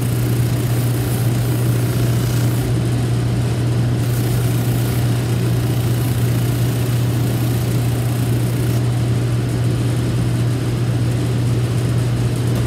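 Cobbler's shoe finishing machine running with a steady motor hum while a heel is sanded against its spinning sanding wheel.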